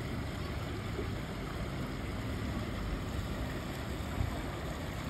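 River water rushing and lapping in small waves, a steady noise.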